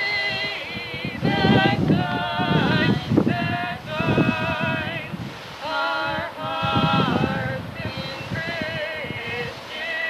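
Two women singing a duet, long held notes with vibrato in phrases of a few seconds, over a low rumbling that comes and goes.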